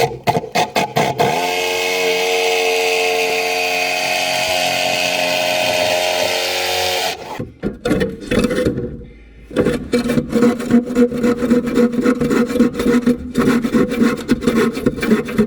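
A saw cutting through the wood of a cabinet: a few knocks, a steady run of about six seconds, a short break, then rapid repeated strokes.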